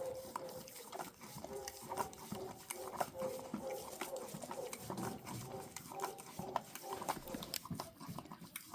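A farm animal close to the microphone, breathing and nibbling, with many small irregular crunches and rustles.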